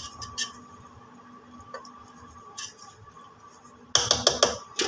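Faint steady hum with a few small clicks, then about four seconds in a quick run of clinks and knocks as kitchen utensils strike a metal cooking pot.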